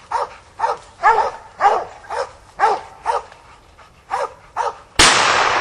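Hog dogs barking repeatedly at a bayed hog, about two barks a second: the sign that the dogs have found the hog and are holding it. About five seconds in, a single loud gunshot cuts in and rings out in a long fading echo.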